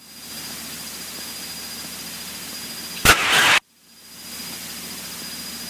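Cessna 152's four-cylinder engine droning steadily in cruise, heard through the cockpit intercom. About three seconds in, a brief loud burst of crackle cuts across it; the sound then drops out and fades back in.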